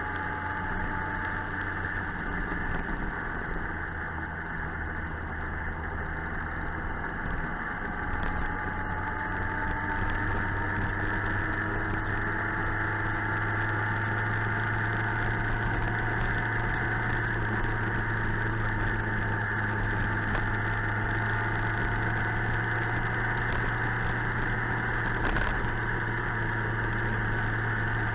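Suzuki GSX-R 1000 inline-four engine running at a steady cruise under heavy wind and road noise, its pitch drifting slowly up and down. The engine hum gets somewhat louder about ten seconds in.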